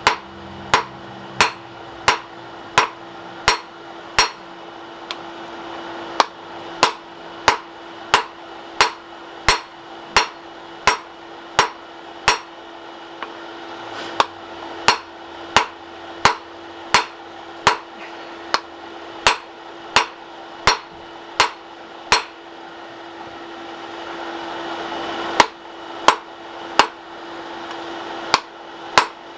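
Hand hammer blows on a hot bar of 1080 high-carbon steel, drawing down a bulge along its length. The blows ring and fall in a steady rhythm of about one and a half a second, pause for about three seconds near the end, then resume, over a faint steady hum.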